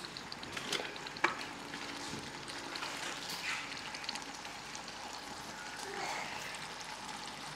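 Sambal chili paste frying in oil in a nonstick wok: a steady soft sizzle with scattered small pops, and one sharper click about a second in.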